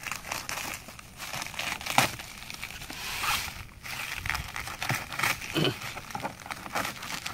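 Plastic packing wrap crinkling and tearing as it is pulled off a boxed power tool, a steady stream of irregular crackles with one sharper crack about two seconds in.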